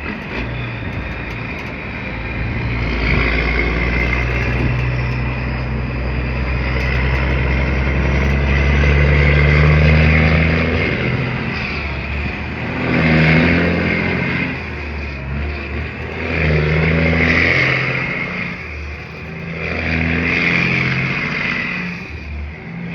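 Diesel engine of a semi-truck pulling a heavy load down the road. It runs loud and low, and the revs climb and then drop back several times as the driver shifts up through the gears.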